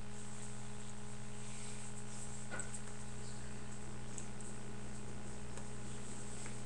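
Steady low hum over an even hiss, the background noise of a quiet small room, with a faint tick or two midway.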